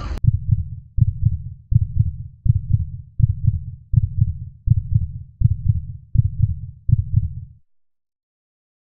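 Low, muffled thumping beat in the soundtrack, about four thumps every three seconds, with all the higher sound filtered away. It stops abruptly about three-quarters of the way through.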